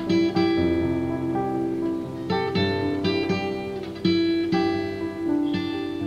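Acoustic guitar music: plucked chords ringing out and fading, with fresh chords struck every second or two.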